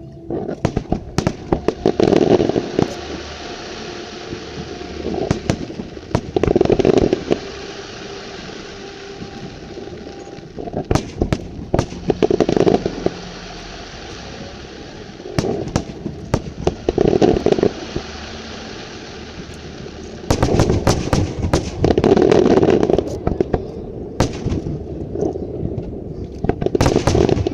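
Aerial fireworks display: dense rapid crackling and popping bangs in loud volleys that come and go every few seconds, with a steady crackle between them.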